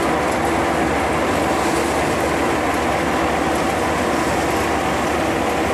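Paddy threshing machine running steadily: a loud, even mechanical drone with a constant hum.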